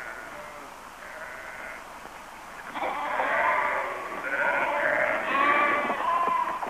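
A flock of sheep bleating, several overlapping calls that grow louder and denser about three seconds in.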